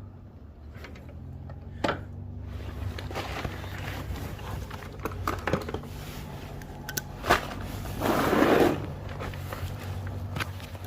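Small metal clicks and scrapes as footpeg bracket parts are handled and fitted by hand, with a sharp knock about seven seconds in and a louder scraping rustle just after, over a steady low hum.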